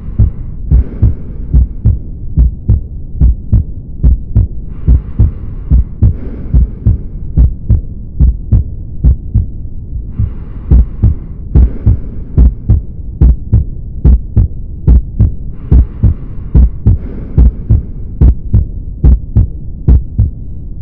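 Heart sounds heard through a stethoscope: a steady, regular lub-dub beat of paired low thumps, with a soft hiss that swells in and out every five to six seconds.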